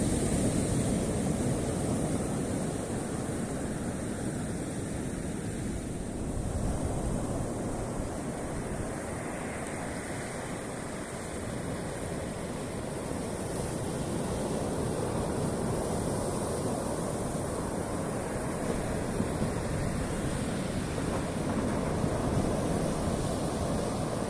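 Sea waves washing onto the shore, with wind rumbling on the microphone.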